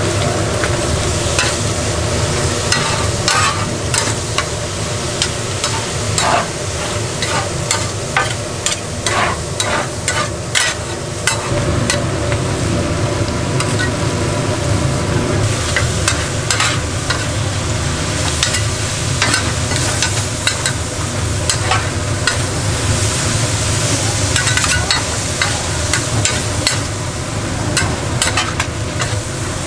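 Stir-fried gopchang (intestines with vegetables) sizzling in a hot pan as it is stirred, with frequent sharp clicks and scrapes of the utensils against the pan.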